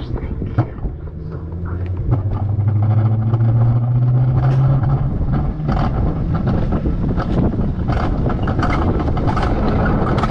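Wiegand alpine coaster sled running down its steel tube track: wheels rolling on the rails, with many clicks and rattles. A steady low hum fades out about halfway through, and the sound gets louder over the first three seconds.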